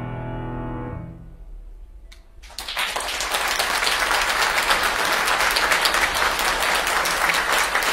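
The final chord of the music dies away. After a short pause, audience applause breaks out about two and a half seconds in and carries on steadily.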